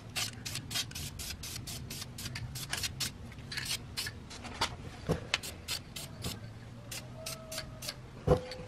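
Aerosol can of high-temperature caliper paint spraying in many short bursts, about three or four a second, as light coats go onto a brake caliper.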